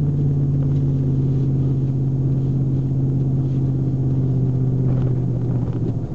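Ford F-150's 4.6-litre V8 with an Airaid cold-air intake droning steadily at cruise, heard from inside the cab. The drone eases off near the end.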